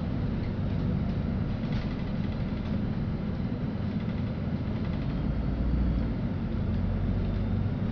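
Steady low rumble of a LiAZ-5292.65 city bus running, heard from inside the passenger cabin.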